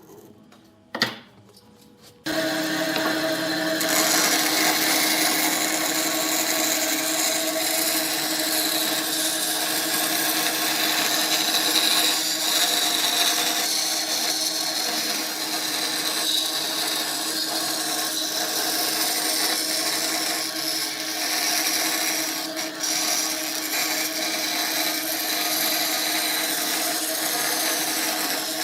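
A power tool working on wood: a sharp click about a second in, then the tool starts abruptly about two seconds in and runs steadily with a constant hum under the cutting noise.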